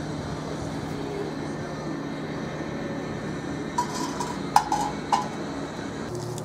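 A piece of scrap steel clanking three times against a rusty steel tank, sharp metallic knocks with a short ring, the second the loudest, over a steady low hum.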